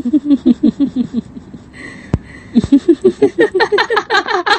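Evil horror laugh, a rapid run of "ha-ha-ha" pulses that breaks off after about a second and a half, then resumes about two and a half seconds in, louder and climbing higher in pitch. A single sharp click falls in the gap.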